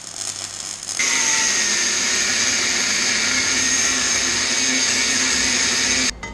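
An electric power tool running at a steady speed, starting loud about a second in and cutting off abruptly near the end, with a quieter rushing noise just before it.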